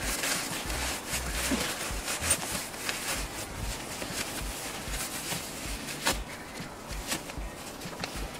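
Rustling and crinkling of the tent's Oxford polyester fabric and its nylon carry bag as the folded tent is pushed down into the bag and the top is drawn shut, in many short irregular scrapes and rustles.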